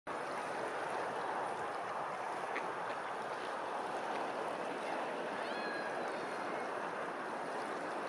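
Steady rushing noise of choppy open water, with a few faint, short, high bird calls a little past halfway through.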